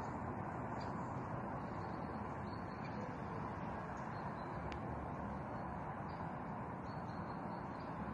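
Steady outdoor background noise with faint, high, scattered chirps, and a single sharp click about halfway through.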